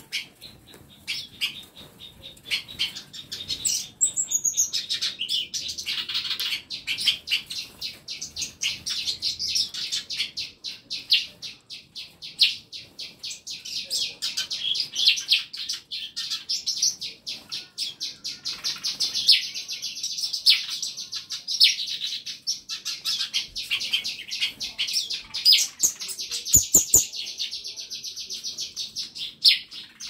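A flock of small caged songbirds in an aviary chirping and twittering together, a dense, unbroken chorus of rapid high chirps.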